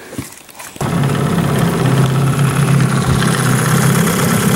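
Johnson 9.9 hp outboard motor running steadily, coming in abruptly a little under a second in.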